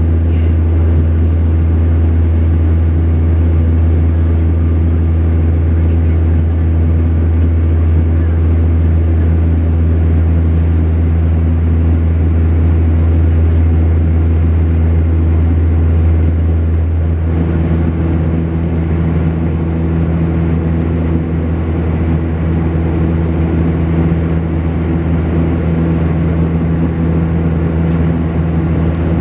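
Saab 340B turboprop engines and propellers droning steadily, heard inside the cabin, with a strong low hum. About two-thirds of the way through, the tone shifts and gets slightly quieter, as with a change in power or propeller setting.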